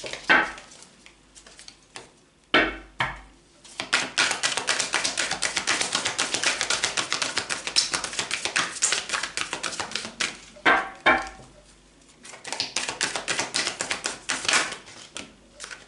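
A deck of oracle cards shuffled by hand: a fast run of card-on-card flicks lasting several seconds, a short pause, then a second run near the end, with a few single louder knocks in between.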